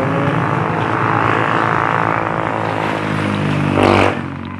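Engine of a motor vehicle passing close by on the road: a steady pitched hum that swells to its loudest near the end, dips a little in pitch, then falls away.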